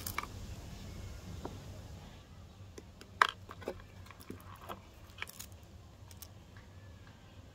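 Handling noise from a warranty card and its holder being moved in the hand close to the microphone. A low rumble for the first two seconds, then scattered small clicks and taps, the sharpest about three seconds in.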